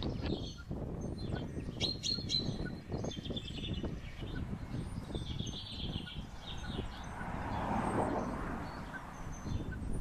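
Small birds chirping and singing over a low, uneven rumble.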